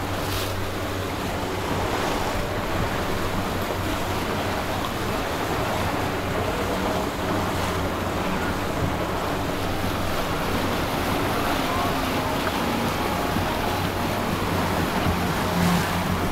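Steady wash of open water and wind noise on the microphone, with a steady low hum underneath.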